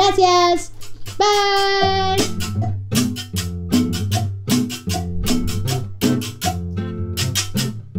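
Music: a couple of held melodic notes, then from about two seconds in a steady rhythmic beat of sharp percussion strokes over a bass line.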